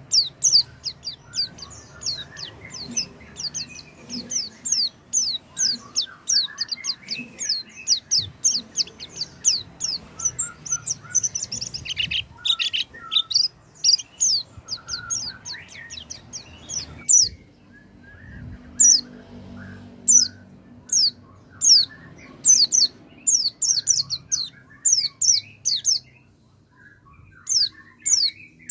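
A small songbird's rapid, high chirps sweeping downward, several a second, with softer lower notes in between and a couple of brief pauses. It is a lure (pancingan) recording, played to prompt a white-eye that has gone silent to start singing.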